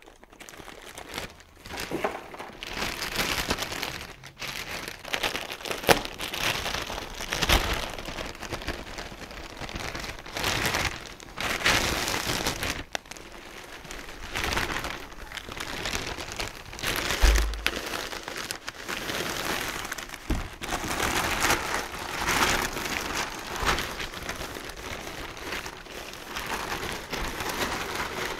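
Plastic packaging film crinkling and rustling in irregular surges as a wrapped car spoiler is handled and unwrapped, with a few sharp knocks and one low bump along the way.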